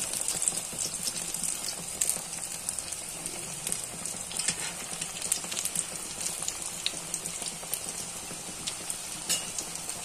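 Breadcrumb-coated paneer cutlets deep-frying in hot refined oil: a steady sizzle with scattered small crackles and pops.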